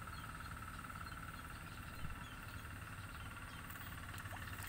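A steady, high-pitched chorus of calling animals, a fine rapid trill that holds at one pitch, over a low steady rumble.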